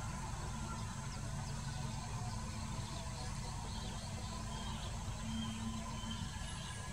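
Outdoor ambience: a steady low rumble with a few faint, short high chirps.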